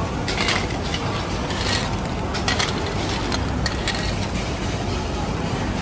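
Busy seafood-market din: a steady background hum of activity with scattered clatter and knocks from handling.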